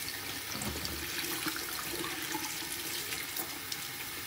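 Water running steadily from a bathroom sink tap, splashing into the basin and over a young monkey being washed under the stream.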